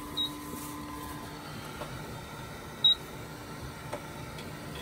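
Anycubic Photon resin printer running with a steady hum as a print begins, with two short high electronic beeps about three seconds apart, the second louder.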